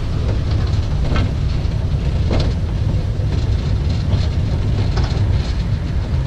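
Narrow-gauge Hunslet saddle-tank steam locomotive running slowly, heard from its footplate: a steady low rumble with a few faint knocks.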